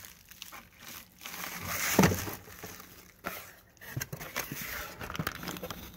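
Cardboard boxes and packing material rustling and crinkling as parts are handled, loudest about two seconds in, with a few light clicks and knocks of the parts later on.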